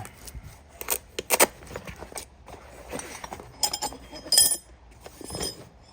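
Steel wrenches clinking and jangling against each other as they are picked up and set down: a couple of sharp clicks, then a brighter cluster of ringing clinks about two-thirds of the way through.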